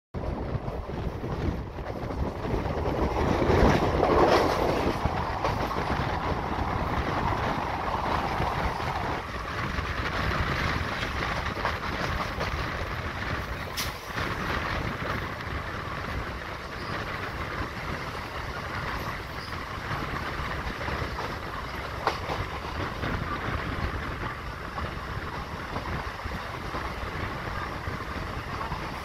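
Running noise of an electric MEMU passenger train, heard from the side of a coach: a steady rush of wheels on rails and air, with a louder swell a few seconds in and an occasional sharp click from the track.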